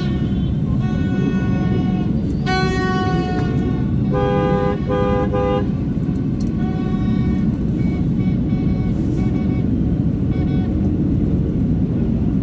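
Horns honking in heavy street traffic: a long blast, then three short toots in quick succession about four seconds in, with fainter honks after. They sound over a steady traffic rumble.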